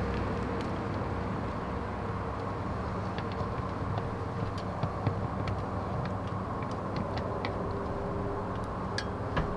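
Small scattered clicks and scrapes of screws being driven by hand to fasten a floodlight fixture to its mounting plate, over a steady low hum with a few held tones.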